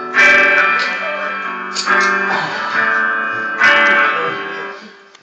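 Guitar chords strummed a few times, each chord left ringing and slowly fading before the next.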